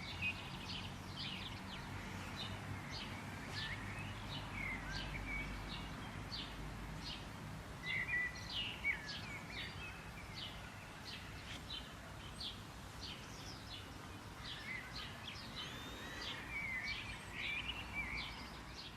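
Small songbirds chirping and twittering, with many short high chirps repeated throughout and a few warbled phrases, over a steady low rumble.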